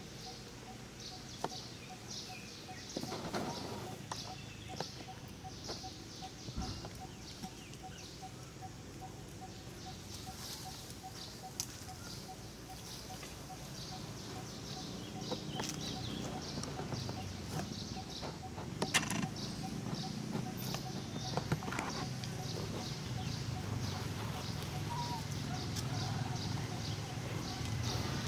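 Outdoor ambience: small birds chirping, with a faint steady pulsing tone and a low rumble that grows louder from about halfway through.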